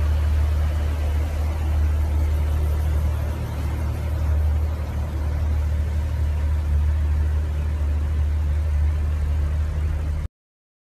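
Car engine idling, a steady deep exhaust rumble with no revving, cut off abruptly about ten seconds in.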